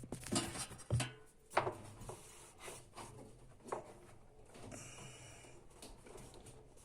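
Parts of a washing machine being handled during repair: a series of sharp knocks at irregular intervals, with scraping and rubbing between them.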